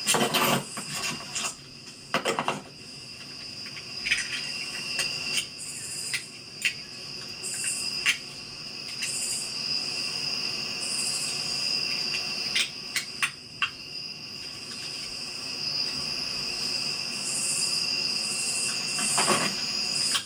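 Crickets chirring steadily in a continuous high-pitched chorus, with a few scattered sharp clicks or knocks.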